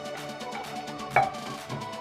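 Background music with a steady beat, and one sharp knock a little over a second in.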